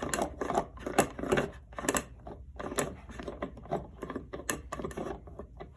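Irregular light clicks and taps of small objects being handled, several a second.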